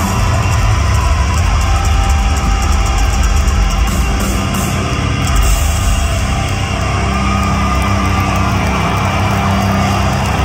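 Live hard rock band playing loudly, with distorted electric guitars, bass and drums, recorded from within the concert crowd.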